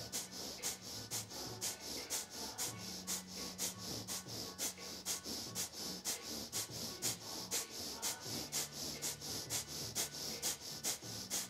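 Kapalabhati (skull-cleansing) breath: rapid, short, sharp exhalations puffing out through the nose, about three a second in an even rhythm.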